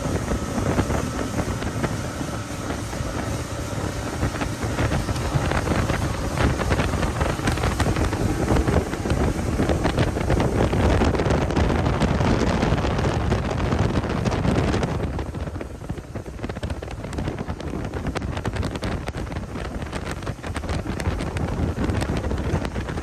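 Motorboat running across choppy water, with strong wind buffeting the microphone. The rush of noise lessens about two-thirds of the way through.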